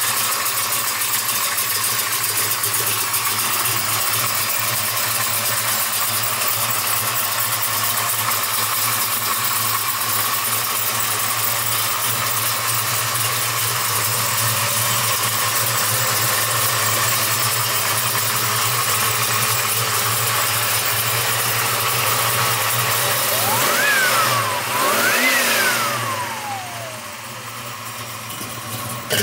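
Chevrolet 454 big-block V8 running steadily at idle, then revved twice in quick succession near the end, the pitch climbing and falling back each time.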